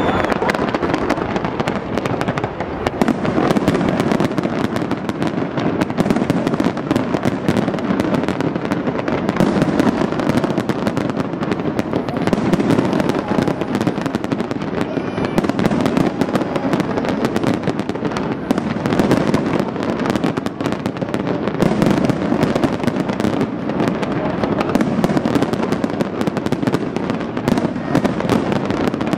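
Large fireworks display going off without a break: rapid, overlapping bangs and crackles.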